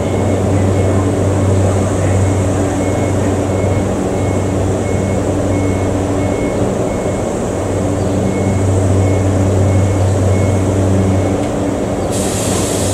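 Steady low hum of a train's electrical equipment at a station, with a faint short beep repeating about twice a second. A sudden steady hiss starts near the end.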